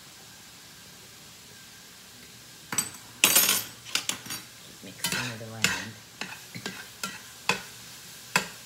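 A metal utensil clinking and scraping against a pan in quick, irregular strokes, starting about three seconds in, over squash and onions sizzling faintly as they fry.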